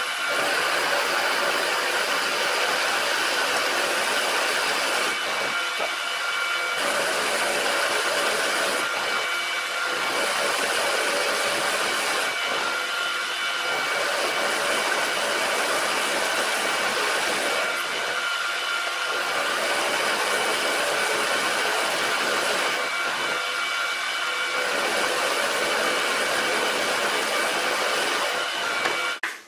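Bernardo BF 30 G milling machine's spindle running as an end mill cuts aluminium: a steady whine over a continuous cutting hiss, easing and coming back a little every few seconds. It cuts off suddenly near the end.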